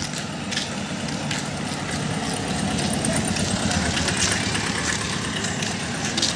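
Engine of a small white van running as it drives up and passes close by, its low rumble growing louder toward the middle as it goes past.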